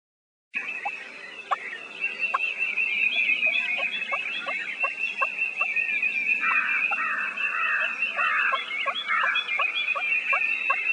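Nature ambience sound effect: a steady high-pitched drone with short rising chirps repeating about twice a second, and a run of about five rougher calls a little past the middle.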